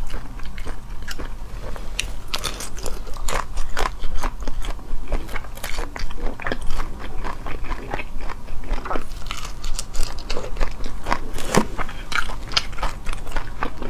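Close-up crackling and crunching of cooked shrimp shells being peeled apart by hand and bitten, with chewing: a quick, irregular run of small clicks and crunches.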